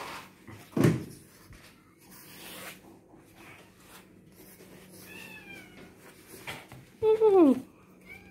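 A pug whining: a short high whine about five seconds in, then a loud whine that falls in pitch near the end. A short, loud burst of noise comes about a second in.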